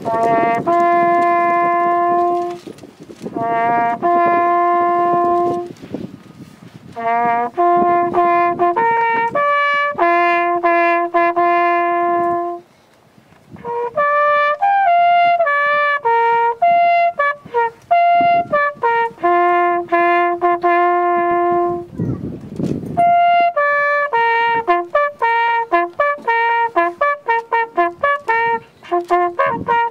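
Solo brass instrument playing a slow bugle call: a single line of long held notes, all from the bugle's natural harmonic series, in phrases broken by short pauses. It is played as a salute to the fallen airman at the unveiling of his memorial.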